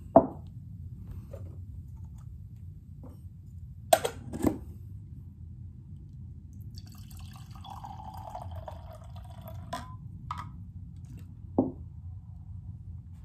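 Shaken drink trickling from a metal cocktail shaker into a stemmed glass for about three seconds, with sharp metal clicks from the shaker just after the start and about four seconds in, and a few light knocks near the end.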